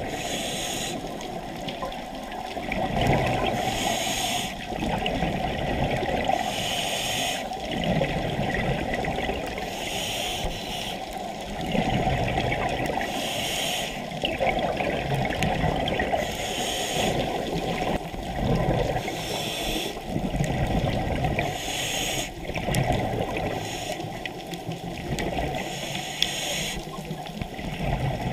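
Scuba regulator breathing underwater: a short hiss of each inhalation through the demand valve about every three seconds, alternating with the bubbling gurgle of the exhaled air.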